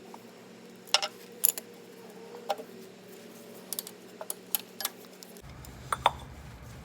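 Irregular sharp metallic clicks and taps of hand tools being worked under a truck while an oil filter housing is refitted and tightened, about a dozen scattered strikes. A low hum comes in near the end.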